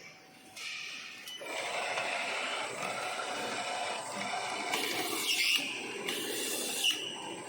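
Automatic wrap-around labeling machine for round jars running: a steady mechanical whir that comes up about a second and a half in, with short high squeaks now and then.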